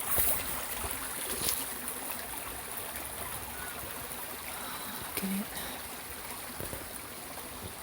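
Steady rushing of a river flowing, with a few light clicks over it.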